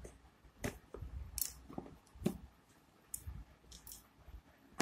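Cardboard smartphone box being handled and turned over on a tiled floor: a scattered series of short light taps and knocks as fingers grip the box and it touches down.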